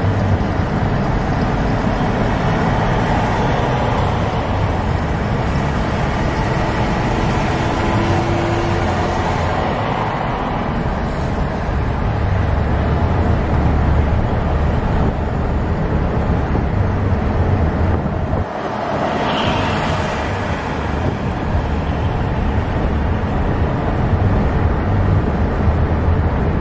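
Steady road noise of a car driving at highway speed: low engine and tyre rumble with traffic around it, and a brief louder rush a little before twenty seconds in.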